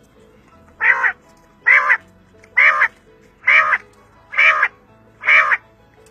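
A bird calling six times in a steady series, harsh single notes a little under a second apart.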